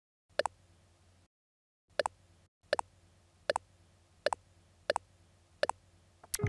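Camera shutter clicking, eight single shots, most about three-quarters of a second apart.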